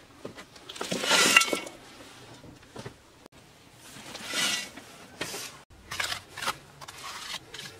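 A metal trowel scraping and spreading wet mud plaster over mud bricks in several separate strokes, the longest about a second in and another about four seconds in.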